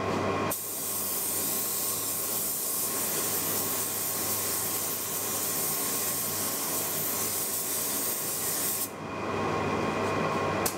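Compressed-air spray gun spraying clear coat over a cabinet door: a steady hiss of air and atomised finish. It dips briefly just after the start and thins about nine seconds in, as the trigger eases between passes.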